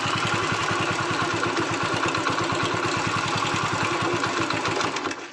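Motorcycle engine idling with a steady, even putter while the rear brake is tested, with no tak-tak knock from the brake now that the loose brake shoe nut has been packed with a washer and tightened. The engine sound stops suddenly near the end.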